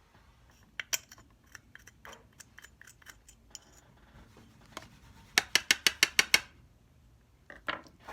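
Small metal carburetor parts and hand tools clinking and tapping on a workbench, with a quick run of about nine sharp clicks just past the middle.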